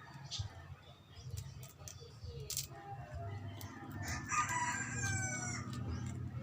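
A rooster crowing once, a long call of about two seconds starting about four seconds in. Short sharp clicks come and go throughout, over a steady low hum.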